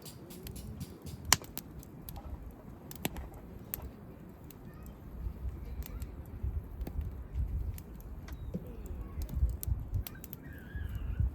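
Wood campfire crackling with scattered sharp pops, one loud pop about a second in, over a low rumble.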